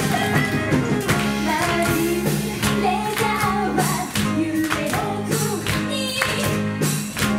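Live pop band playing: women singing together over drums with a steady beat, electric guitar and bass.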